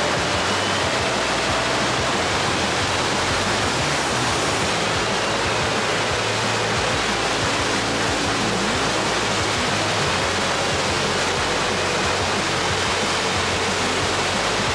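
Steady rush of river water pouring over a low concrete weir and churning into a white standing wave.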